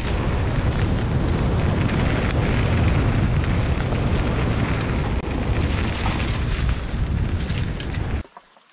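Wind rushing and buffeting over a helmet-mounted camera's microphone, with tyre rumble and rattling from a mountain bike riding fast on a dirt singletrack. The noise cuts off abruptly about eight seconds in, leaving only a few faint clicks.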